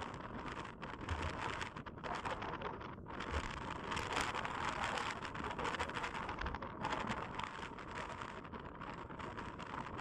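Wind gusting across an outdoor microphone: a rushing hiss that swells and eases, with low rumbles where the gusts buffet the mic.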